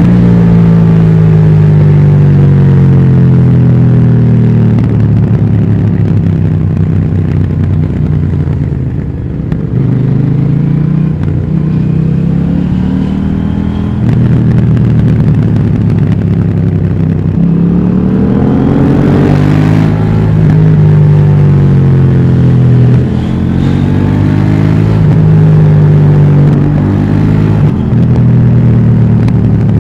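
2018 KTM 790 Duke's parallel-twin engine through its stock exhaust, pulling up through the revs and dropping back several times as the bike accelerates, shifts and slows.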